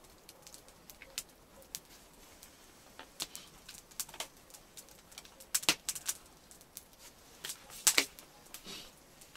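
Campfire crackling: irregular sharp pops and snaps, with a couple of louder ones about five and a half and eight seconds in.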